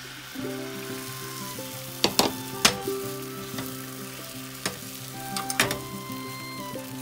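Beaten egg sizzling as it is poured into a hot oiled rectangular tamagoyaki pan and spread. Wooden cooking chopsticks tap sharply against the pan a few times, about two seconds in and again past the middle.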